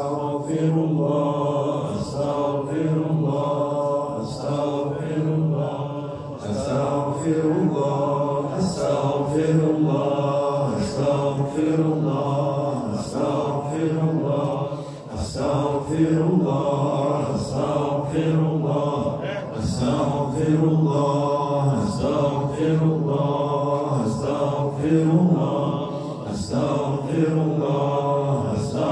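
Low male voices chanting dhikr, a repeated devotional phrase sung over and over in a steady rhythm.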